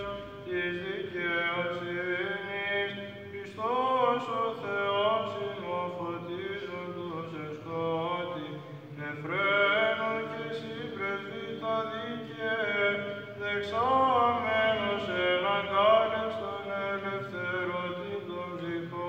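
Byzantine chant sung by monks' male voices at Vespers. An ornamented melody rises and falls in slow glides over a low held drone note (the ison).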